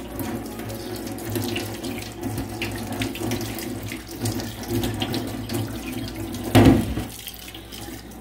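Kitchen tap running into a stainless steel sink while a black stove part is rinsed under the stream, the water splashing off it. The sound swells briefly about six and a half seconds in.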